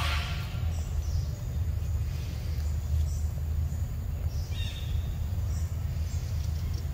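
Forest ambience: a steady low rumble with faint bird chirps here and there, and a short louder sound at the start and another about four and a half seconds in.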